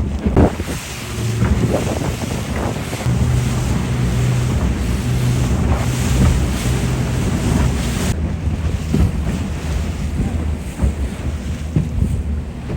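Motor boat running under way, its engine a steady low hum, with wind buffeting the microphone and water rushing past the hull. The high rushing noise drops away suddenly about eight seconds in, leaving mostly the engine hum.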